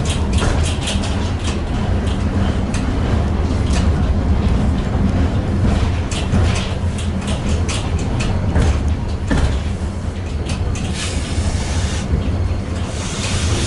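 Tatra T6B5SU tram running on the rails, heard from inside: a steady low hum with frequent clicks and rattles. There is a short hiss about eleven seconds in and another near the end.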